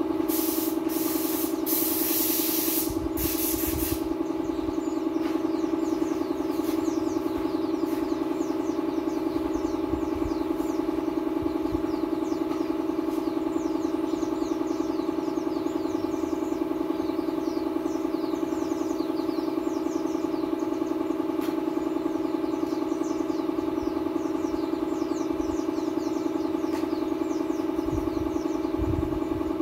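Hose-fed paint spray gun hissing in several short bursts over the first four seconds. Under it, a motor hums steadily throughout.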